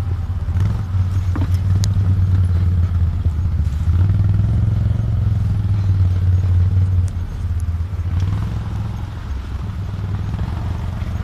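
Side-by-side UTV's engine running steadily on a dirt trail, with a few knocks and rattles; the engine note eases off about seven seconds in.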